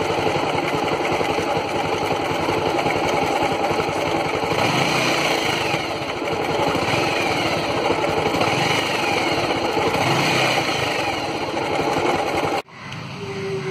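Air-cooled motorcycle engine idling steadily, with the alternator charging the battery at about 14 volts. The sound cuts off abruptly about a second before the end.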